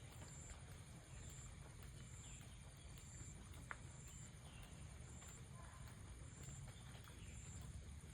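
Faint insect chirping: a short high buzz repeating about once a second over a steady high-pitched drone, with a low outdoor rumble underneath and one sharp click about halfway through.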